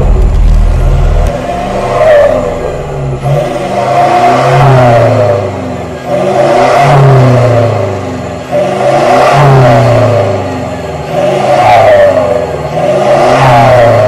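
Toyota Hilux Vigo VNT turbo-diesel engine free-revved through an HKS Legamax aftermarket exhaust: about six blips, each rising in pitch and falling back, roughly every two seconds.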